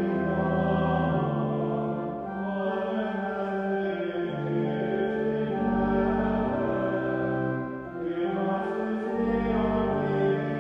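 Church pipe organ playing slow, sustained chords in a hymn-like setting, with deep pedal notes coming in under the chords about halfway through and again near the end.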